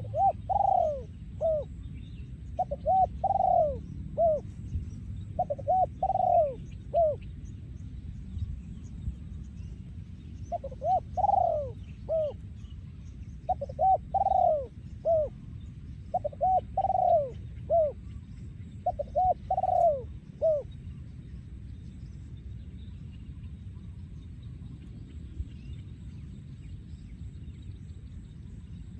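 Male spotted dove cooing in repeated phrases of several arched notes, about seven phrases a couple of seconds apart, falling silent about two-thirds of the way through.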